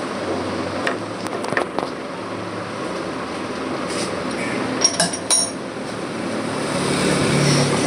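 Steady machine-shop background noise with a few light metallic clinks of metal parts, about a second and a second and a half in and a quick pair near five seconds.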